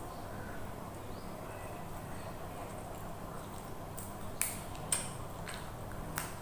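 Close-miked eating: chewing, with a few sharp, crisp crunches or clicks in the second half, over a steady low hum.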